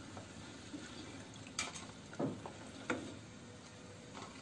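Hot oil sizzling faintly as sooji golgappa puris deep-fry in a pan, with three light knocks as a perforated steel skimmer and a wire strainer lift the puffed puris out.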